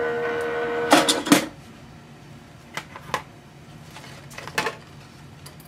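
Sizzix Big Shot Switch Plus electric die-cutting machine's motor running with a steady hum as it feeds the cutting-plate sandwich out, stopping about a second in. A couple of loud clacks follow as the clear cutting plates are pulled from the machine, then a few lighter clicks as they are handled.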